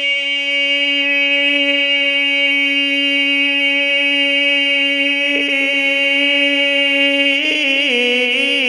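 Male naat reciter holding one long sung note, with a brief break about five seconds in, then moving into a wavering, ornamented melody near the end.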